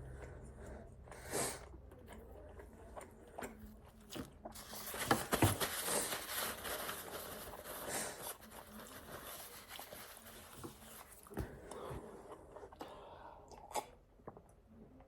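Close-miked chewing and biting of pizza: wet mouth clicks and crunching, busiest from about five to eight seconds in.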